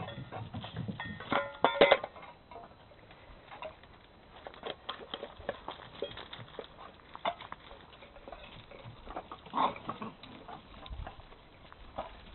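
Five-week-old Bernese mountain dog puppies giving high yelps, loudest about two seconds in and again near the end. Between them come scattered clicks and scuffs of paws and steel food bowls on gravel.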